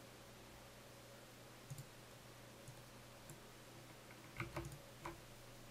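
Faint clicks of a computer mouse and keyboard, a few scattered ones and then a short cluster about four and a half seconds in, over a low steady hum.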